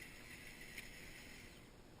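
Faint high whine of the Kyosho Blizzard EV's electric motor and track drive, fading out after about a second and a half, with a single sharp click a little under a second in.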